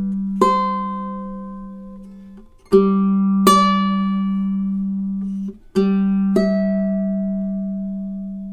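Koa-and-redwood tenor ukulele with low-G fluorocarbon strings, played solo and unamplified: slow fingerpicked notes over a ringing low bass note. A new pair of notes is plucked about every three seconds, each left to ring and fade.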